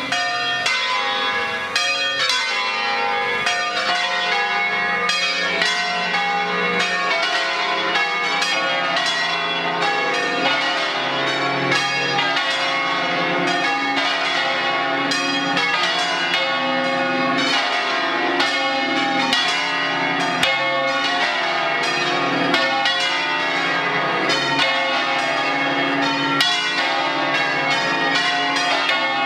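Several church tower bells, swung electrically, ringing a solemn peal: strikes follow one another rapidly and overlap, leaving a continuous wash of ringing tones.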